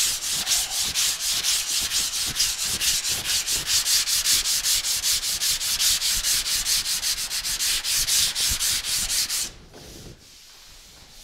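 Sandpaper rubbed by hand in fast, even back-and-forth strokes over a primed car fender, a rapid rhythmic scratching as the guide coat is sanded off the primer to show up low spots. The strokes stop about nine and a half seconds in.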